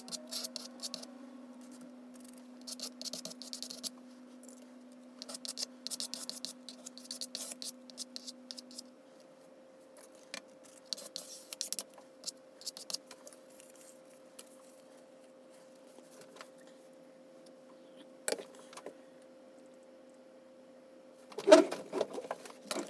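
Sped-up scraping of a plastic card spreading acrylic paint across illustration board, heard as clusters of short raspy strokes over a faint steady hum. Near the end there is a single loud knock and rattle.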